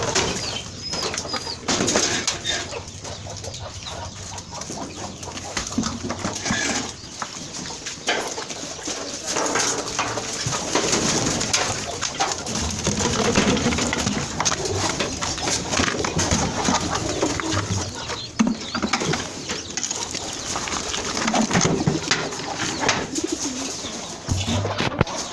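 Domestic birds in a farmyard calling, with low cooing calls coming now and then among many scattered clicks and rustles of the birds moving about.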